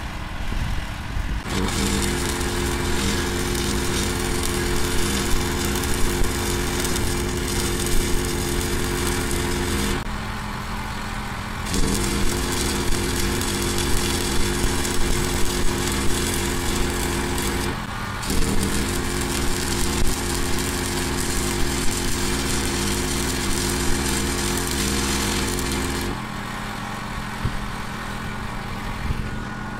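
Stick-welding arc crackling and buzzing as railroad spikes are welded to a steel loader bucket. It comes in three runs with short breaks about ten and eighteen seconds in, and stops a few seconds before the end. A low engine hum runs steadily underneath.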